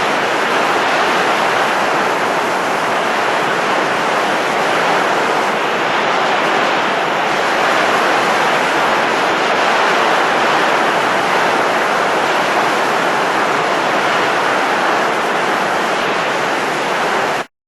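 A steady rush of blowing air, even throughout without swells, cutting off abruptly near the end.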